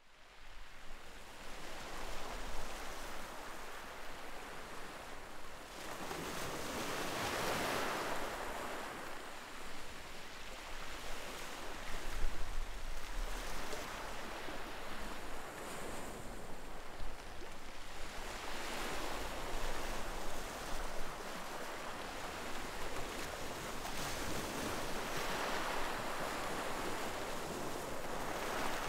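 Ocean surf: waves breaking and washing onto the beach, the noise swelling and fading every several seconds.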